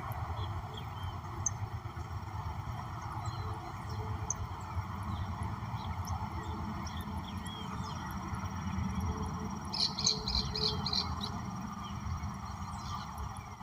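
Several wild birds chirping and calling off and on over a steady background hiss and low rumble, with a quick run of high chirps about ten seconds in.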